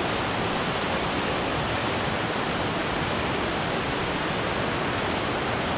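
Shallow river rapids rushing steadily over stones, a continuous even roar of water.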